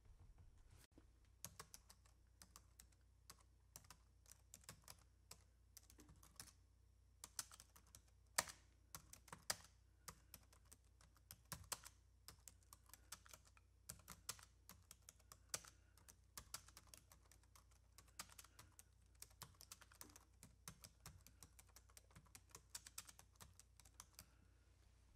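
Faint, irregular clicking, several clicks a second, starting about a second in, over a faint steady low hum.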